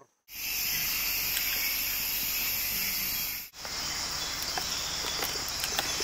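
Night rainforest insect chorus: steady, high-pitched trilling in several pitch bands. It cuts off abruptly a little after three seconds and gives way to a similar insect chorus with scattered faint clicks.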